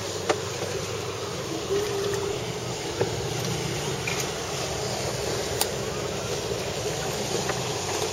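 A rigid inflatable boat's twin outboard motors run steadily while under way, with wind on the microphone and water rushing past the hull. A few sharp knocks stand out, the loudest about a third of a second in.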